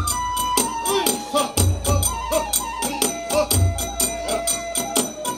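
Kagura festival music: a bamboo flute playing a held, sliding melody over a rapid, steady clashing of small hand cymbals. Deep drum strikes come in pairs, about a second and a half in and again near the end.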